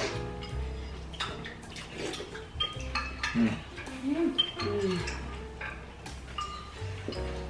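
Metal spoons clinking and scraping against soup bowls in short, irregular taps as several people eat soup.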